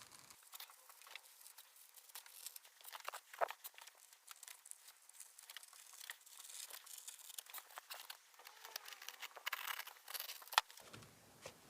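Scalpel blade cutting through ShadowFoam tool-organiser foam and the cut piece being peeled back: faint scratchy crinkling and tearing with scattered small clicks.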